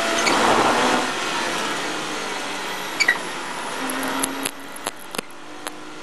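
Porsche Cayman race car's flat-six engine heard from inside the cockpit, easing off as the car slows into a corner and then pulling again. A string of sharp knocks comes in the second half.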